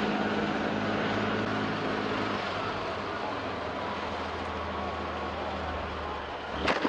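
Army tank's engine running with a steady low drone, its pitch dropping about two and a half seconds in. A single sharp crack sounds near the end.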